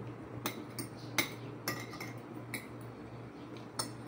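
Spoon and fork clinking and scraping against plates while eating, several short sharp clinks spaced irregularly about half a second to a second apart, over a steady low hum.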